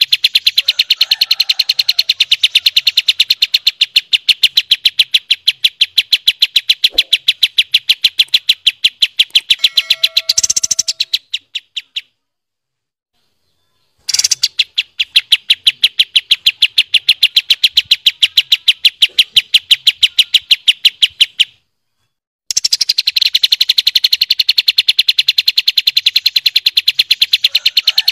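Recorded birdsong of a kapas tembak and a cucak cungkok. It is a long, fast, evenly repeated rattling trill of sharp high notes, the rapid 'tembak' roll, broken twice by short silences. A brief lower, steadier call comes in about ten seconds in.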